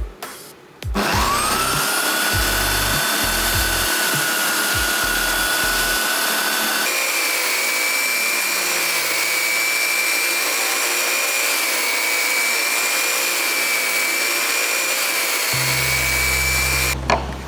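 Electric power tool's motor spinning up with a rising whine about a second in, then running steadily at a high pitch. Midway the whine jumps abruptly to a higher pitch, and it cuts off near the end.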